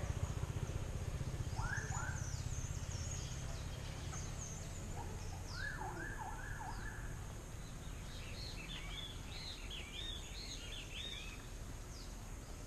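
Several small songbirds chirping and calling in short, quick notes, some sweeping down in pitch and a rapid run of arched notes near the end, over a steady low rumble.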